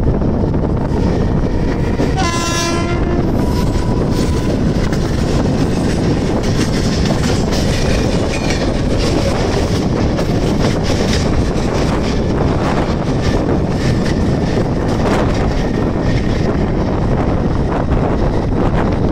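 Mumbai suburban electric local train pulling away from the platform and picking up speed, heard from its open doorway as a steady rush of wheels and wind. A train horn sounds for about a second, about two seconds in. A run of sharp wheel clicks over rail joints and points comes through the middle.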